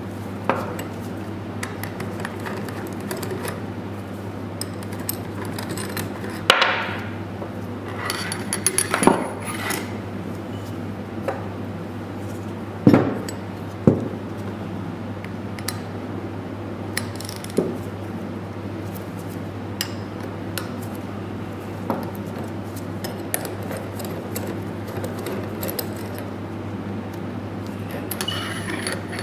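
Metal clinks and knocks of hand tools and steel parts being handled and set down, as the pneumatic cylinder's tie-rod nuts are undone with an Allen key and the rods laid aside. A steady low hum runs underneath.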